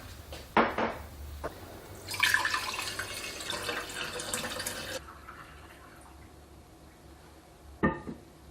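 A short knock, then a kitchen tap runs for about three seconds and stops suddenly; another knock comes near the end.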